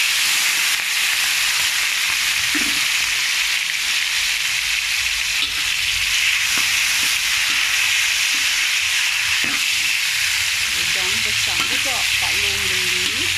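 Whole shell-on prawns frying in hot oil in a metal wok: a loud, steady sizzle, with a metal spatula stirring and turning them.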